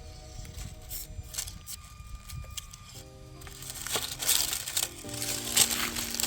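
Background music with slow held notes, over irregular crunching and scraping of a micro RC crawler's tires on rock, busiest and loudest in the second half.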